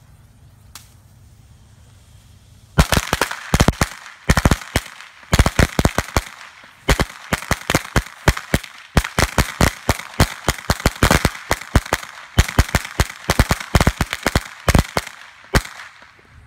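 A string of firecrackers going off on pavement, with rapid, irregular sharp cracks and a few brief gaps. It starts about three seconds in and stops shortly before the end.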